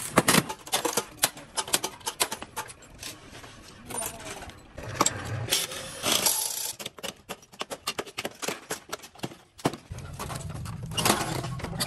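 Metal clinking, clicking and knocking of hand tools and scrap parts as discarded electric scooters are taken apart, with many quick clicks in fast runs.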